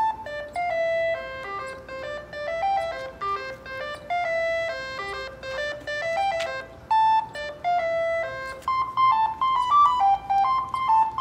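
Ice cream truck jingle: an electronic chiming melody of single notes, one after another without a break.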